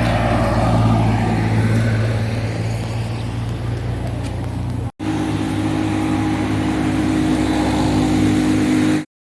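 Steady low engine hum. It breaks off for an instant about halfway, resumes with a slightly different pitch pattern, and stops abruptly near the end.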